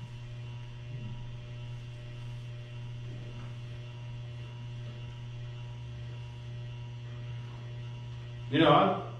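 Steady electrical mains hum, one low buzzing tone with a ladder of fainter overtones, holding unchanged throughout. A short spoken word cuts in near the end.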